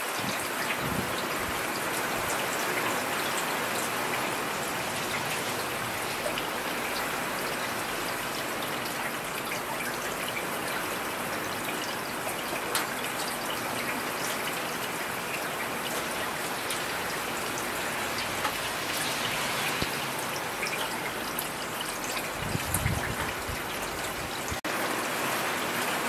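Steady rain falling, an even hiss of many drops.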